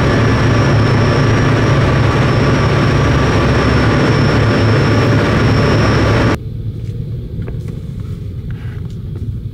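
A car ferry under way: a loud, steady engine drone with a rushing noise over it. About six seconds in this cuts off suddenly to the much quieter low rumble heard inside a Kia Ray car on the ferry's vehicle deck, as the car prepares to drive off.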